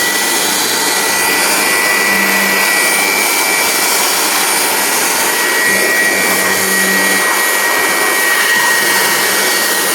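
Electric air blower running at full speed, a steady high whine over a loud rush of air, blowing dust out of a dusty computer.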